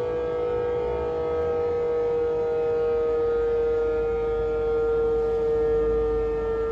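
Motor-driven outdoor warning siren of a municipal disaster-prevention radio system, sounding its daily 5 p.m. time signal: one long, loud wail whose pitch slowly sinks.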